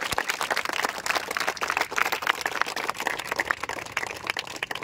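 A crowd of people applauding, many hands clapping together.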